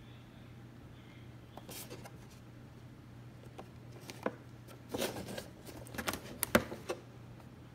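A cardboard Funko Pop box with a plastic window handled and turned over in the hand: scattered light clicks, then a run of sharp taps, crinkles and rustles over the last few seconds, the loudest one near the end. A faint low hum runs underneath.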